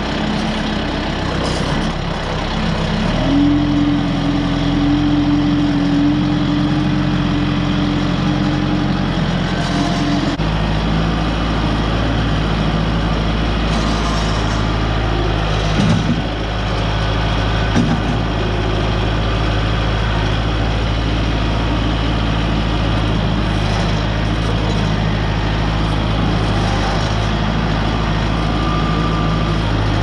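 Kubota M6060 tractor's four-cylinder diesel engine running steadily while the loader works. A high steady whine comes in about three seconds in and stops around ten seconds, and the engine note turns deeper and heavier from then on. Two short knocks follow in the middle.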